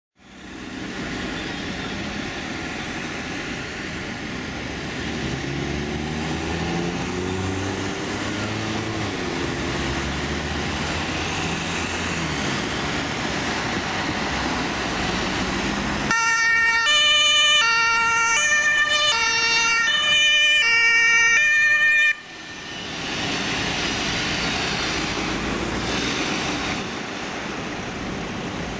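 Fire brigade vehicles on an emergency run: engine and road noise, with an engine note rising and falling as a vehicle moves off. About halfway through, a German two-tone siren (Martinhorn) sounds loudly, alternating between two pitches for about six seconds, then cuts off suddenly, leaving engine and traffic noise.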